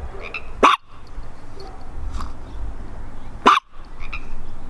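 Chihuahua barking: two sharp single barks, about three seconds apart.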